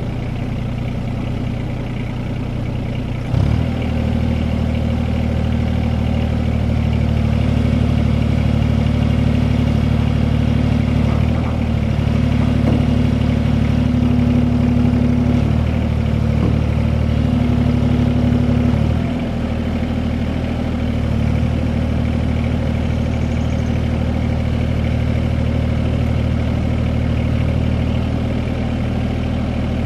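Caterpillar 302.7D CR mini excavator's diesel engine running. The engine note jumps up suddenly about three seconds in and holds louder as the boom lifts a pickup truck bed under hydraulic load, with a short dip partway through. About two-thirds of the way through it drops back to a steadier, lower run.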